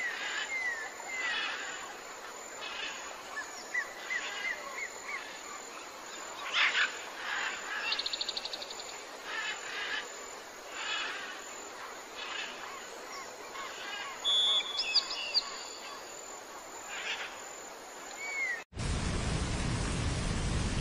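Mixed wild birdsong: assorted chirps, short whistled glides and a quick trill over a faint steady hiss. About two seconds before the end it cuts off abruptly and gives way to a steady, even rushing noise.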